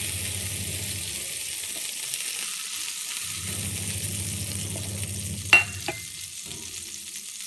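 A small steel bowl clinks twice on the kitchen counter about five and a half seconds in, with a short ring. Under it is a steady hiss, and a low hum that comes and goes.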